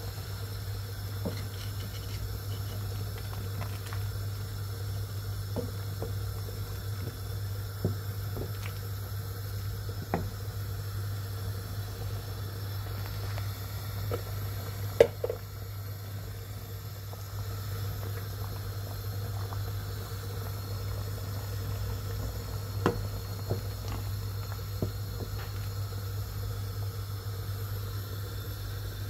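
Broth boiling in an enamelled pot, with scattered light knocks as a wooden spoon stirs it; the loudest knock comes about halfway through. A steady low hum runs underneath.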